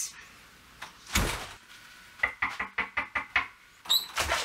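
A door thudding shut about a second in, then a quick run of about seven knocks on a wooden panelled front door, with another knock or thump near the end.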